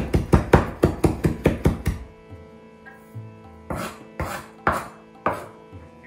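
Chef's knife chopping fresh parsley on a wooden cutting board: quick chops about six a second for the first two seconds, then a pause and four slower chops about half a second apart near the end.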